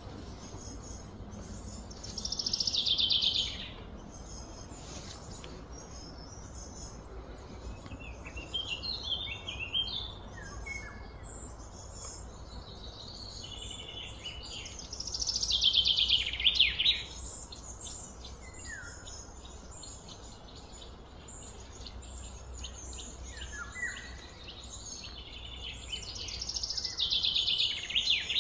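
Birds calling: three loud, fast trills that slide down in pitch, a few seconds in, in the middle and near the end, with softer scattered chirps between them over a low steady background rumble.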